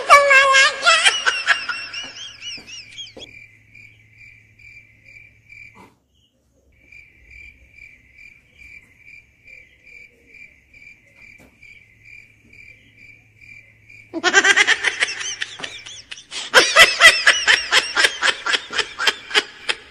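Laughter at the start, then a cricket chirping at a steady pitch, about two chirps a second, for roughly twelve seconds, with a short break. About two thirds of the way in, loud, high laughter starts again and runs to the end.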